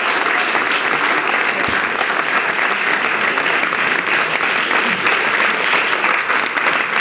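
Audience applauding steadily, many people clapping at once in a hall, at the end of a performance.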